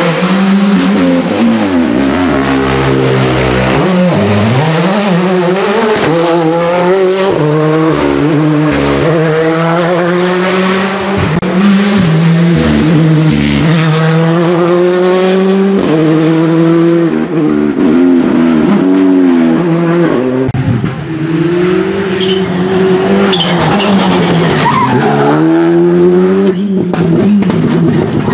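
Rally cars driven flat out, one after another, on a stage. Their engines rev hard, and the engine note climbs and drops again and again as they change gear.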